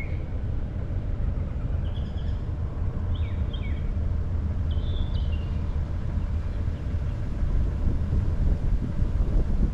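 Steady low rumble of a car driving slowly, with road and wind noise on the microphone. A few short bird chirps are heard over it around the middle.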